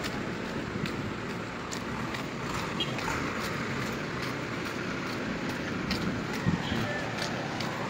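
Steady city street noise, mostly distant traffic.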